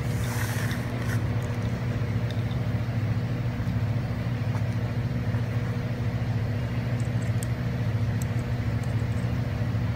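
Steady low machine hum, like an engine idling, with a brief rustle near the start and a few faint clicks later on.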